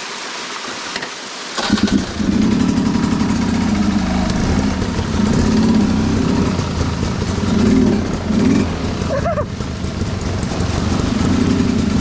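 Rushing creek water, then a two-stroke dirt bike engine cuts in about a second and a half in. It runs low and uneven, rising and easing in pitch several times as the throttle is worked.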